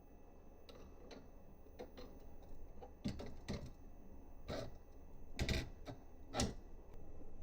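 Irregular clicks and knocks of small hardware and tools being handled while a 3D printer is assembled. They are light at first, then sharper from about three seconds in, with the loudest knocks near the end.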